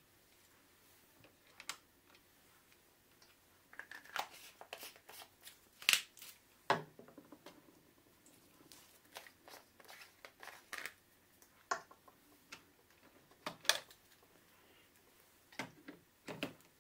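Plastic Epson 114 ink bottles being handled at the printer's ink tanks: irregular clicks, taps and light knocks of bottles, caps and filler ports, loudest about six seconds in.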